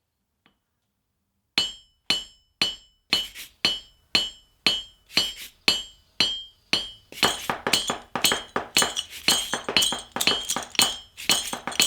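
Hammer blows on steel over an anvil, evenly spaced about two a second, each with a metallic ring; from about seven seconds in the blows come faster and overlap.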